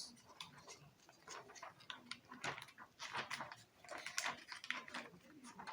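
Plastic being handled while a face shield is assembled: irregular small clicks and crackles as a clear transparency sheet is fitted onto a 3D-printed PLA frame.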